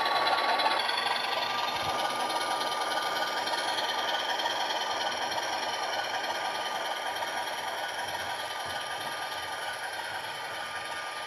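HO-scale PRR RF-16 model diesel locomotive running along the track: the DCC sound decoder's diesel engine sound from its small speaker, mixed with motor hum and wheel rattle. The sound slowly gets quieter.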